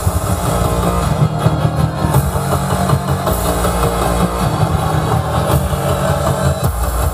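Film soundtrack played in a Bluetooth speaker sound test: a loud, steady, heavy bass rumble of vehicle noise with music mixed in.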